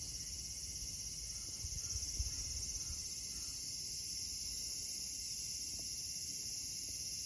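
A steady, high-pitched chorus of insects shrilling without a break. A few brief low thumps come about two seconds in.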